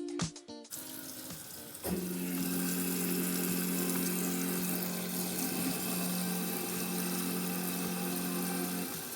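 Water running from the faucet into a kitchen sink. About two seconds in, a garbage disposal motor starts and hums steadily with the water flowing, then shuts off shortly before the end: a test run of the newly installed disposal.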